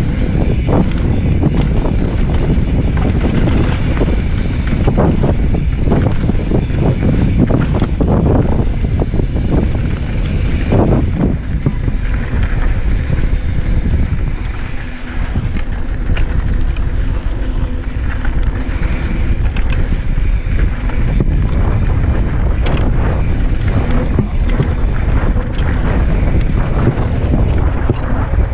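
Wind buffeting the microphone as a Polygon Square One mountain bike is ridden fast down a rough dirt and rock trail, with a steady rumble of tyres on dirt and scattered knocks and rattles from the bike over bumps.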